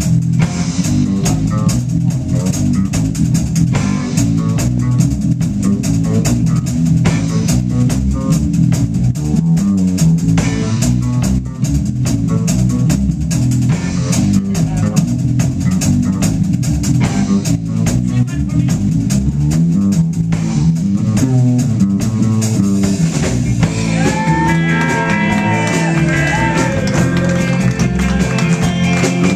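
Live blues band playing an instrumental stretch: drum kit, electric bass and electric guitar. A lead line of bending, sliding notes comes in over the band in the last few seconds.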